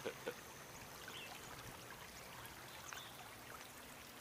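Faint, steady trickle of water from a small shallow stream running over stones.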